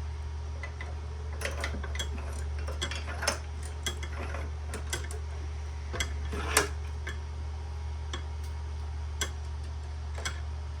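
Small metal parts clinking and clanking in irregular knocks as furnace pilot burner assemblies are handled and worked loose from their steel bar, two of the knocks a little louder than the rest, over a steady low hum.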